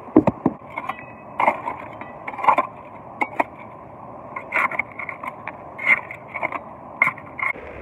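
Steel shovel digging into rocky river gravel, with irregular sharp knocks and short scrapes of metal and rocks on stone, over a steady rush of river water.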